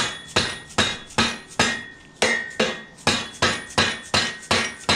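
A hammer repeatedly striking a steel engine stand: sharp knocks about three a second, with a brief pause near the middle, each with a short metallic ring. The blows knock the stand's mounting head into position while an engine is fitted onto it.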